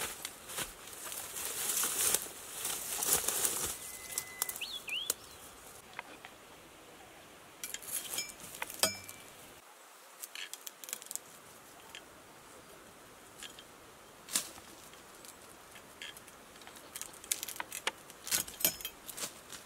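Bamboo leaves and stems rustling as someone pushes through a dense thicket, with a couple of short bird chirps. Later come scattered sharp clicks and snaps, bunched near the end, as a pole-mounted sickle blade cuts young Chinese toon shoots from the stem.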